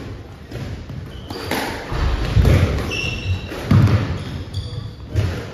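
Squash rally: the ball cracks off rackets and the court walls several times, the hardest hits about two and a half and four seconds in. Short high squeaks of court shoes on the wooden floor come around the middle.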